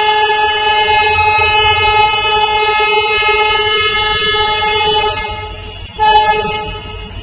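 Railway locomotive horn sounding one long steady blast that fades after about five seconds, then a second short blast about six seconds in, over a low rumble.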